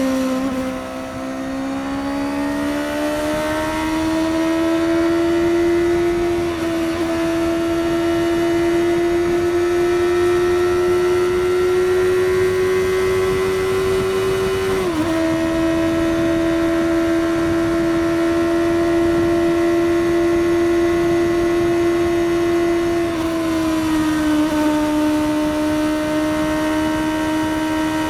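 Suzuki GSX-S750's inline-four engine with its stock exhaust, pulling at highway speed. The pitch climbs slowly, drops sharply about halfway through as it shifts up a gear, holds steady, then eases lower near the end as the throttle is rolled off.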